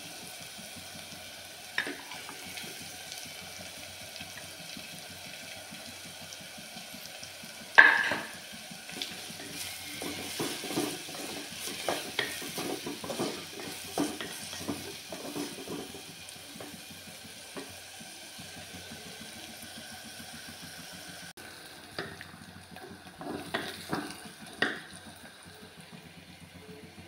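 Chopped onions frying in oil in a clay pot, a steady sizzle, while a spatula stirs and scrapes against the pot. A sharp knock about eight seconds in is the loudest sound, followed by a run of scraping knocks, with more knocks near the end.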